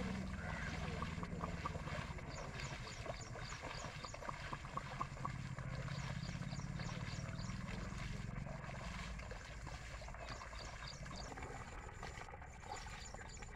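A low steady engine hum, the loudest sound, under water sloshing and splashing as a pair of oxen draw a plough through a flooded paddy field. Runs of short high chirps come about three a second in the middle.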